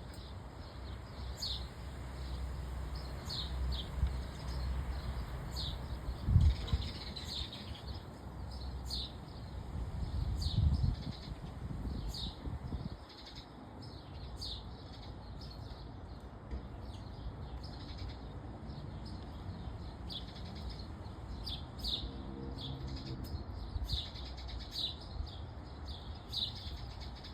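A small bird chirping over and over, short high downward notes about once a second, with low rumbling bursts about six and eleven seconds in.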